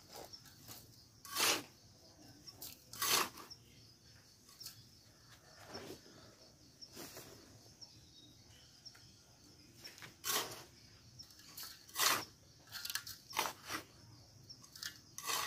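A small metal trowel scraping into sand and tipping it into a metal basin: scattered short scrapes and crunches, about six louder ones, as sand is measured out for a cement mix.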